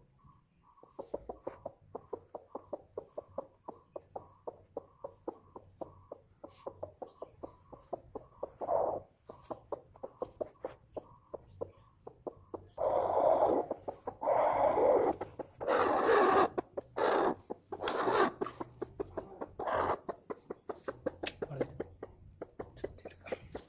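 Broody hen clucking in a quick, steady run of short calls. About halfway through, as a hand reaches under her for the eggs she is sitting on, she gives several loud, drawn-out protesting squawks, about a second each.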